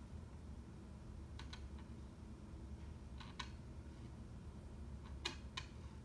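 Scattered sharp clicks or taps, in twos and threes, over a low steady rumble; the loudest click comes a little after five seconds in.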